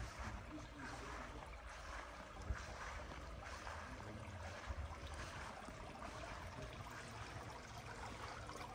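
Faint outdoor ambience: a soft even hiss over a low rumble, with two small knocks, one about two and a half seconds in and one near the middle.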